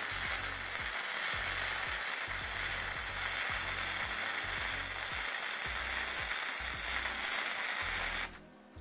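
Gasless flux-cored MIG welding arc from a SEDA MIG-200MDP welder, a steady crackling hiss as a bead is laid, at an output setting the welder finds too strong. It stops abruptly about eight seconds in.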